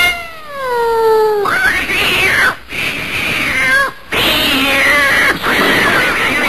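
A small cat yowling as it attacks: one long call falling in pitch, then a run of harsh, rasping yowls broken by short gaps.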